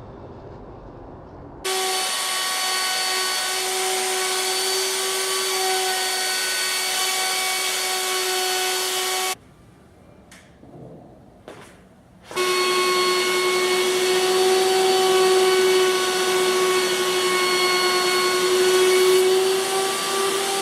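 Drill press motor running at a steady high whine in two long runs, each starting and stopping abruptly, with a few light clicks and knocks in the short pause between them.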